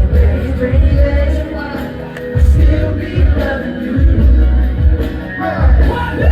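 Live R&B-pop music played loudly through a concert sound system, with a heavy thudding bass beat and some singing.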